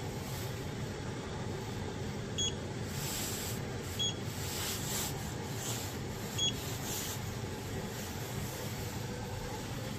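3D printer running with a steady fan hum, with three short electronic beeps spaced a second or two apart and a few brief hissing swells in between.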